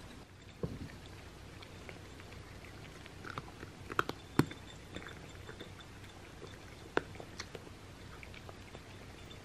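Cats chewing dry kibble: irregular sharp crunches, the loudest a few about four seconds in and one near seven seconds.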